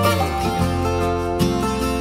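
Background music played on plucked string instruments such as acoustic guitar, in a light country style.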